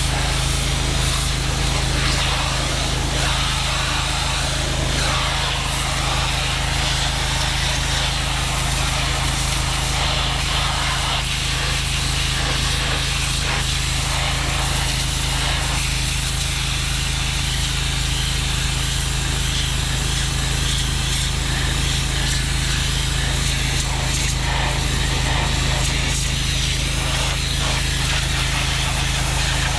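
Londa PGHW 5-3000 hot water pressure washer running steadily under load: its engine-driven pump working with the hiss of the high-pressure water spray.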